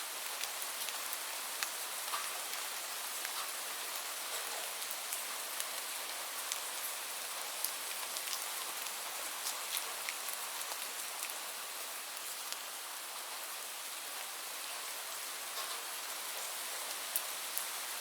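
Steady rainfall: an even hiss of rain with many small, sharp drop ticks scattered through it.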